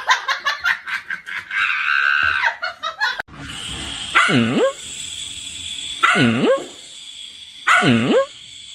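A dog giving three drawn-out barks about two seconds apart, each dipping in pitch and rising again. Before them, for about three seconds, there is a quick run of short, choppy sounds, which stop abruptly.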